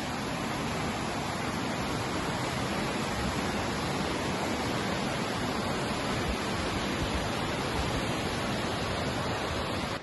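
Steady rushing of creek water, an even hiss that holds without a break.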